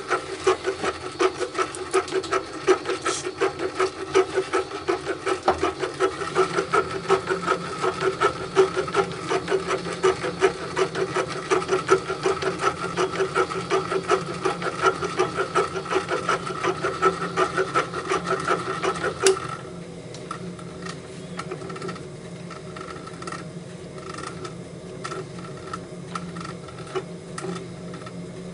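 A small metal lathe hobbing a brass worm gear blank with a spinning thread tap, giving a rapid, even rhythmic chatter as the tap's teeth cut and drive the blank. About two-thirds of the way through the loud cutting chatter stops suddenly, leaving a quieter running hum.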